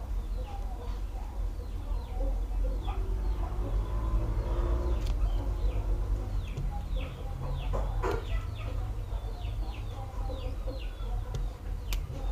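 Chickens chirping and clucking in the background: many short, falling chirps over a steady low hum. A few sharp clicks come through, the loudest about eight seconds in, as a plastic pry tool works around the opened phone's frame.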